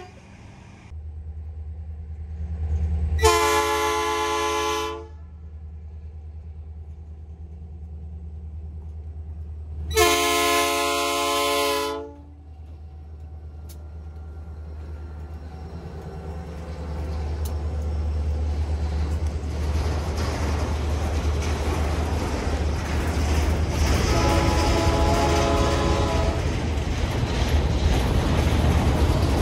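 Diesel freight locomotive approaching with a steady low engine rumble and sounding its horn in two long chord blasts of about two seconds each. It passes and hopper wagons roll by, the steel wheels on the rails growing louder, with a fainter horn blast near the end.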